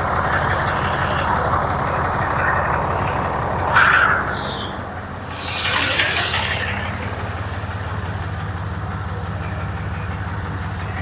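An engine running steadily with a low hum. About four seconds in there is a single sharp clank, and a short hiss follows about two seconds later.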